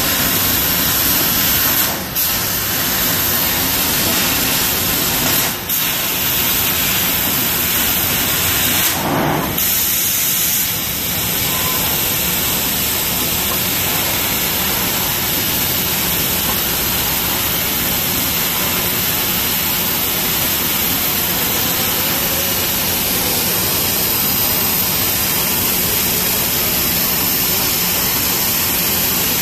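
Trumpf laser cutting machine cutting 2 mm aluminium sheet: a loud, steady hissing rush, broken by a few short dips in the first ten seconds.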